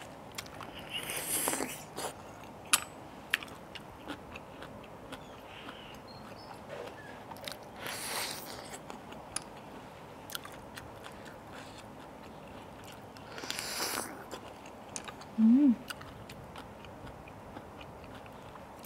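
Close-miked eating sounds: wet chewing and lip smacking with a scatter of mouth clicks, and three short slurps as blood cockle meat and sauce are sucked from the shells. Near three-quarters of the way through comes a brief, loud, rising hum.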